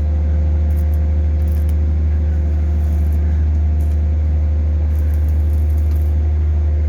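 Engine and hydraulic power unit of a hydraulic static pile driver running steadily, a loud, even, low hum with a few steady tones above it.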